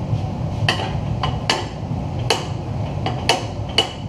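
Sharp metal clanks and taps at a Damascus twisting rig, about seven spread over four seconds, over a steady low hum.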